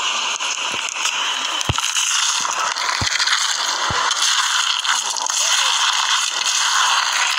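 Polystyrene foam beads crackling and rustling as hands press into and knead foam-bead slime, with three low thumps in the first four seconds.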